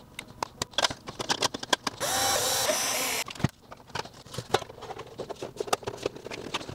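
Rapid small clicks and knocks of fan connectors being pushed onto a motherboard and hands handling a NAS's metal chassis and cover. About two seconds in comes a steady whirring noise lasting about a second.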